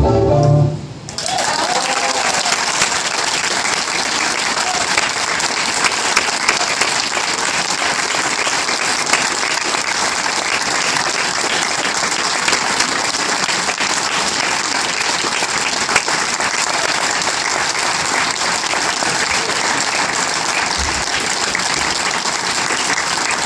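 A recorded milonga ends about a second in, and a large audience breaks into steady applause that keeps going.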